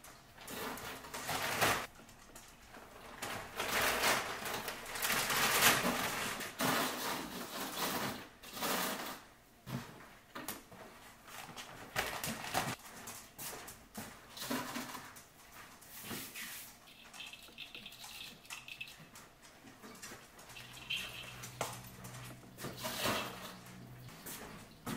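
Rustling of a plastic bag and tree branches, with light knocks and clicks, as Christmas ornaments are taken off an artificial tree and packed away.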